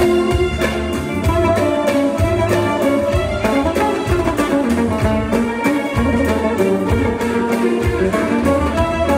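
Live Eastern-style ensemble music: an oud plucked by hand among other melody instruments, over a steady drum beat and bass.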